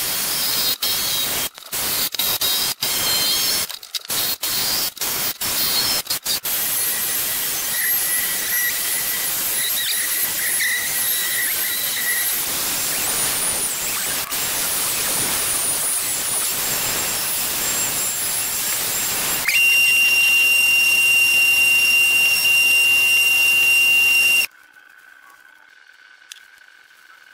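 Woodworking power tools running on wood in a string of short clips: a hissing noise with a high whine that cuts in and out several times over the first few seconds, then runs steadily. It turns into a louder tool with a steady high whine, which stops suddenly near the end.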